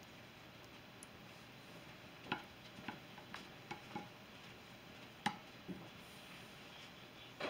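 Scattered light clicks and taps of a plastic spoon against a glass baking dish while spreading blueberry filling, about seven in all, starting about two seconds in, the loudest near the five-second mark.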